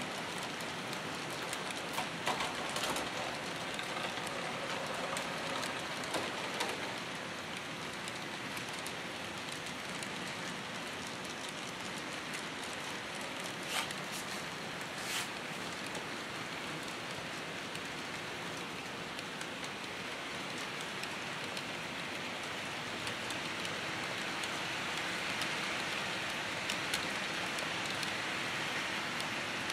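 HO scale model freight trains rolling on the layout's track: a steady rolling hiss from many wheels, with a few faint clicks, growing a little louder near the end.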